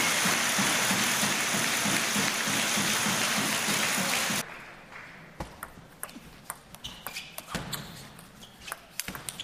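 Crowd in a sports hall applauding and cheering, cutting off abruptly about four and a half seconds in. After that the hall is quiet apart from scattered sharp clicks of a table tennis ball bouncing and being struck.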